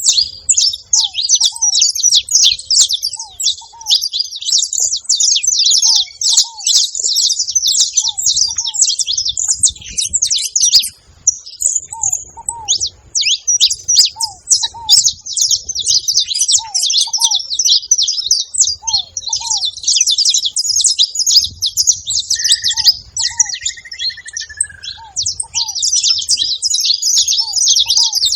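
Saffron finch (canário-da-terra) chattering, a dense unbroken run of rapid high chips with only a brief break partway through. A lower hooked call repeats about once a second underneath, and a short whistled note sounds a little over three-quarters of the way in.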